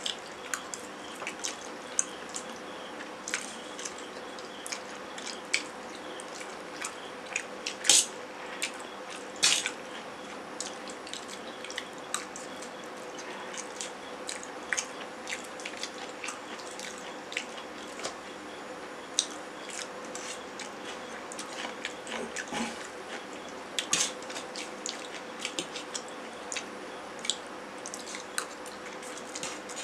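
Two people eating noodles with forks from stainless steel plates: irregular clinks and scrapes of the forks on the plates, with wet chewing sounds, over a faint steady hum. The two loudest clinks come about eight and nine and a half seconds in.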